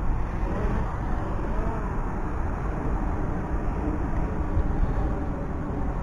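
Wind buffeting an outdoor head-mounted camera's microphone: a steady low rumble that wavers slightly in loudness, with no distinct events.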